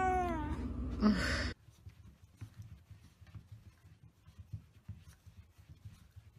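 A cat's meow, rising and then falling in pitch, ends about half a second in, and a short noisy burst follows about a second in. The sound then cuts off suddenly to near silence with faint scattered ticks.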